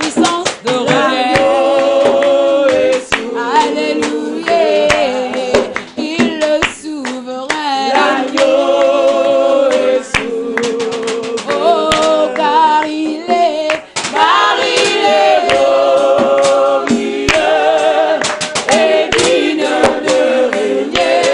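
Three women singing a gospel worship song together, with hand claps.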